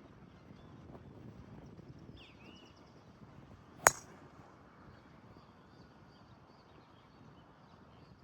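A single sharp crack of a golf club striking the ball, a little under four seconds in, over outdoor background with birds chirping.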